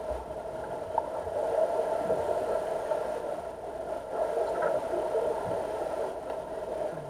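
Underwater ambience in a deep diving pool: a steady hum of the pool's machinery heard through the water, with a faint click about a second in.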